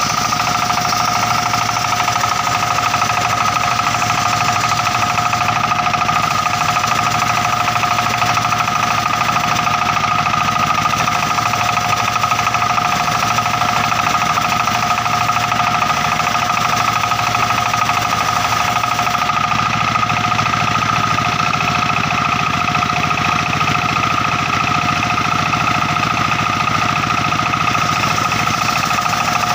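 Circular saw at a sawmill running steadily with a constant high-pitched whine over a mechanical rumble, the rumble growing a little heavier about two-thirds of the way through.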